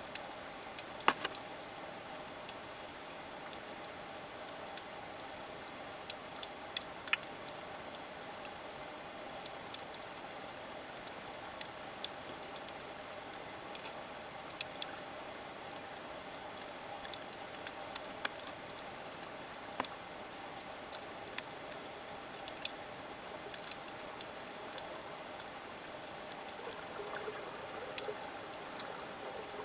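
Underwater ambience recorded with the camera submerged over a reef: a steady hiss and faint hum with scattered sharp clicks and crackles, a few louder ones near the start.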